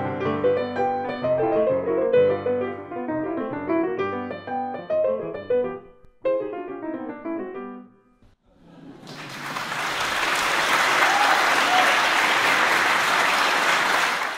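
Solo piano music ending on its last notes about eight seconds in, followed by applause that swells up and holds steady, then stops abruptly.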